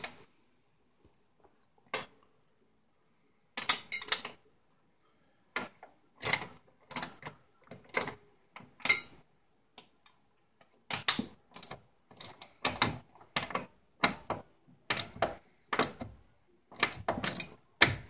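Socket ratchet clicking in short, irregular bursts as it snugs up the brake caliper mount bolts on a snowmobile, with pauses between strokes and busier clicking in the second half.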